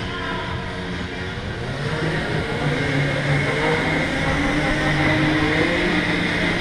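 Electric go-kart motor whining under the driver. Its pitch rises as the kart accelerates out of a turn, starting about two seconds in.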